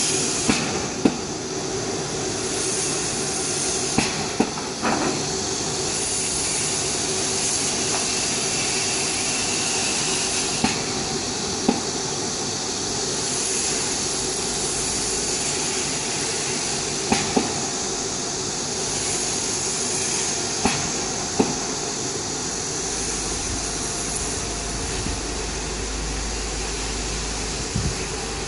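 Laser die-board cutting machine running while it cuts plywood: a steady hiss with a low hum, broken every few seconds by sharp clicks, often in pairs.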